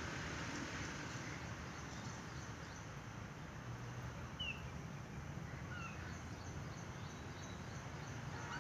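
A few short, high bird chirps, each falling in pitch, about halfway through, over a steady outdoor background hiss.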